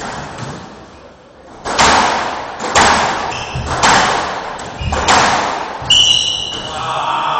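Ricochet rally: the ball is struck and cracks off the court walls about once a second, each hit echoing in the small enclosed court, and a shoe squeaks briefly on the wooden floor near the end.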